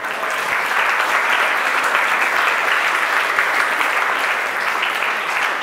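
Audience applauding: a dense, steady round of clapping that breaks out suddenly.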